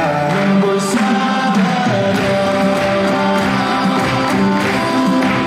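A recorded song playing: held notes over a steady accompaniment.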